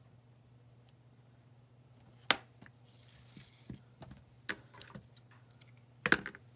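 Scattered clicks and taps of small craft pieces being handled on a cutting mat while ribbon and twine are tied onto tags, with a short rustle about three seconds in. The sharpest knocks come a little over two seconds in and near the end.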